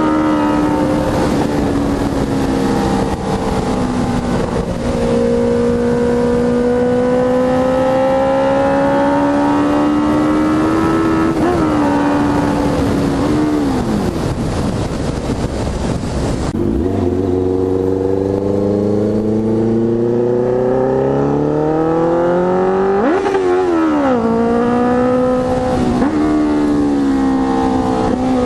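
Honda CB650F inline-four under way through a Jeskap GP2 R full exhaust, loud. The engine note holds and slowly rises, falls away a little before halfway, then climbs again with a sharp flick up and back down near the end, over wind noise that cuts out suddenly midway.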